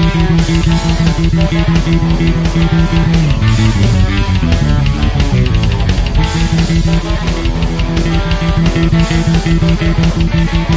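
Instrumental passage of a hard rock song: electric guitar riff over bass guitar and a fast, steady drum beat. About three seconds in, the held low riff breaks into a run of changing low notes, then returns to the held figure about six seconds in.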